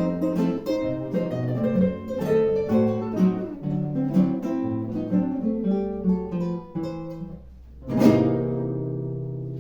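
Acoustic classical guitar playing the closing bars of a piece as quick plucked notes, ending about eight seconds in on one loud strummed chord that rings and slowly fades.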